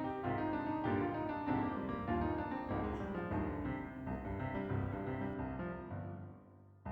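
Background keyboard music with many quick, overlapping notes, fading out near the end.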